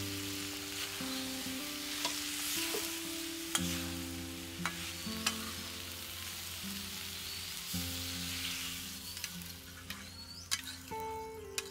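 Potatoes and gourd pieces in spice paste sizzling in an aluminium karahi as a metal spatula stirs them, with occasional sharp taps and scrapes of the spatula against the pan. Soft background music plays underneath.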